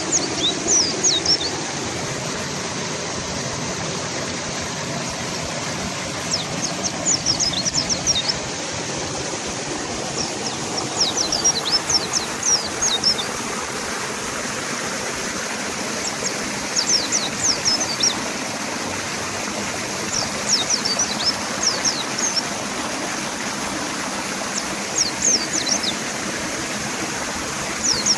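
River water rushing steadily, with a mountain white-eye singing over it: about seven short phrases of rapid, high twittering notes, one every three to four seconds.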